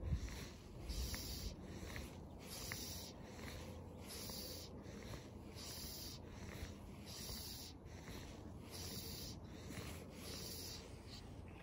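Fly line being stripped in by hand through the rod guides: a steady series of soft rubbing strokes, a little more than one a second, with a low wind rumble on the microphone.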